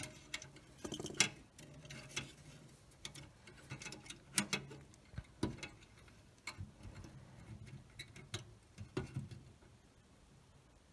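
Scattered small clicks and taps of wire leads and a soldering iron being worked at the terminals of an old car radio's metal chassis as leads are soldered on. The clicks are irregular and stop about nine seconds in.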